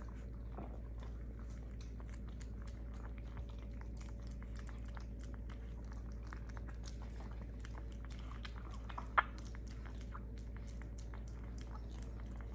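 Pomeranian puppy eating soft food from a ceramic bowl: quick, irregular smacking and chewing clicks, with one louder click about nine seconds in.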